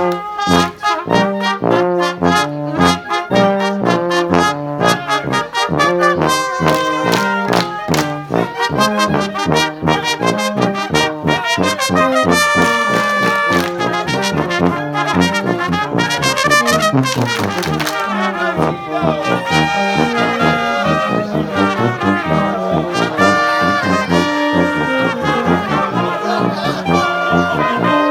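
Polka music played on brass instruments, trombone and trumpet carrying fast melody lines over a steady bouncing beat.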